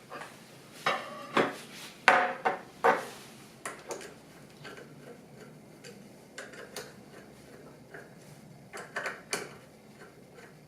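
Metal parts of a meat slicer clanking and clicking as they are handled: a run of sharp knocks in the first three seconds, then lighter clicks, and two more knocks near the end.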